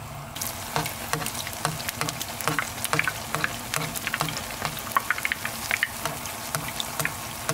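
Jalebi batter deep-frying in hot oil in a pan, sizzling with many sharp crackling pops as hot oil is ladled over it with a mesh strainer. The sizzling grows louder about half a second in.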